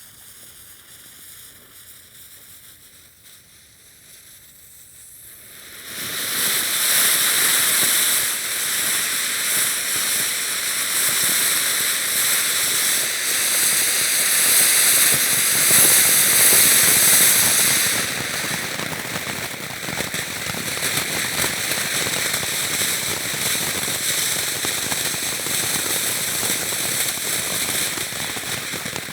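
Fireworks fountains sizzling, a dense crackling hiss full of rapid tiny pops. It is quieter for the first few seconds, then about six seconds in the spray starts at full strength, and it eases a little after about eighteen seconds.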